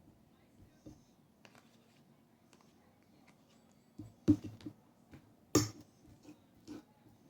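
Scattered light clicks, then a handful of knocks from dishes and cutlery being handled while eating, the two loudest a little over four and five and a half seconds in.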